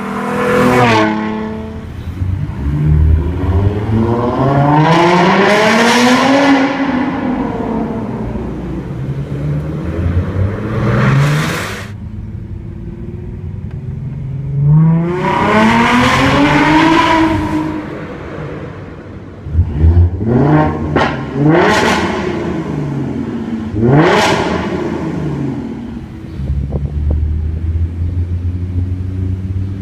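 2015 Ford Mustang's 3.7-litre V6 through a Roush axle-back exhaust with an X-pipe, heard passing by with a falling note, then accelerating hard several times, each pull a long rising note. About two-thirds through come a few quick, sharp revs, and near the end it settles to a steady idle.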